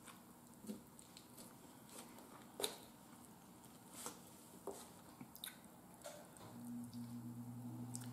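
Faint clicks and soft squishy ticks of a fork working apart a baked chicken leg on a paper plate, a few scattered strikes with one sharper click about two and a half seconds in. A low steady hum starts about six and a half seconds in.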